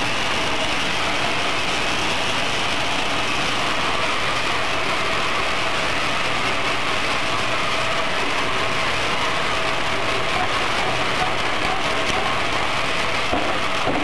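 Rotating peanut coating drum running steadily: a constant low motor hum under a dense rattling hiss of peanuts tumbling inside the drum while they are coated with flour.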